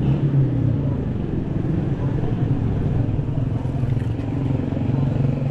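A motor vehicle engine, most like a motorcycle's, running steadily close by, with a low rumble underneath.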